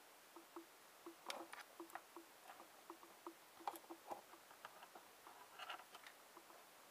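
Faint clicks and rattles of metal alligator clips on multimeter test leads being handled and clipped onto a coil's wire ends, in small clusters. Under them runs a faint, steady ticking at about three ticks a second.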